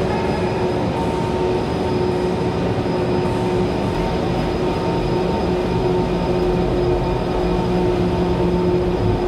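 Steady mechanical hum and rumble of a gondola cable car, with a constant humming tone over it.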